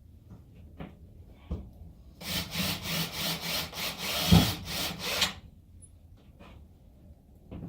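A tool working into wood with a rough rasping noise for about three seconds, pulsing several times a second, with one heavy knock partway through.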